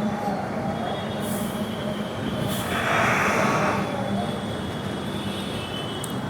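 Steady motor-vehicle engine and street noise, with a louder rushing swell about three seconds in.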